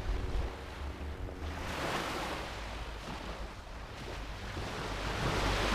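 Waves breaking on a beach: a rushing surf that swells about two seconds in and again near the end, over a low rumble of wind on the microphone.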